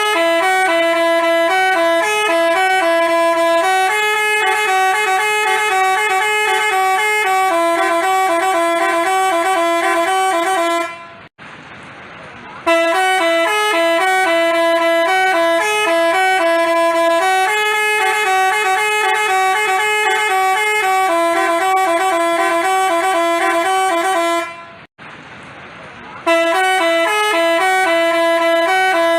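Bus 'basuri' telolet horn playing a tune of quick, stepped horn notes. It breaks off twice for about a second and a half, with only faint background noise in between, and then starts the tune again.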